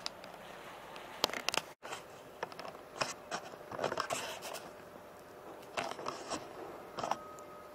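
Irregular scratchy rustling and crinkling with sharp clicks close to the microphone: handling noise on a hand-held action camera. The sound cuts out completely for a moment just under two seconds in.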